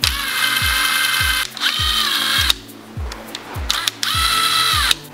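Impact wrench (rattle gun) spinning main bearing cap bolts out of a 2JZ-GE engine block. It runs in three bursts of high whine, each winding down in pitch as it stops.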